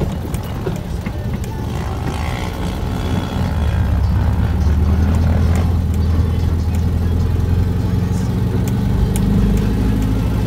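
Dune buggy engine running under way, its low note picking up and holding steadier from about three and a half seconds in, with scattered clicks and knocks from the ride.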